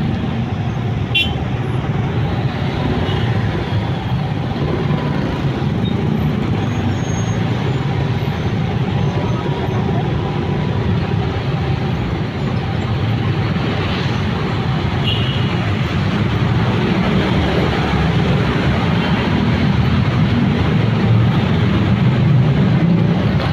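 Motorcycle riding in city traffic, heard from the rider's seat: a steady mix of engine, road and wind noise with surrounding traffic, getting a little louder in the last several seconds.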